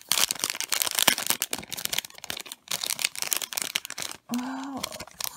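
Packaging being unwrapped by hand: dense crinkling and rustling with many small crackles. A short hummed voice sounds near the end.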